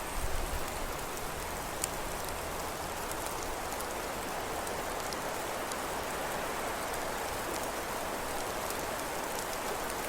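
Steady rain falling, a constant hiss with scattered faint ticks of drops.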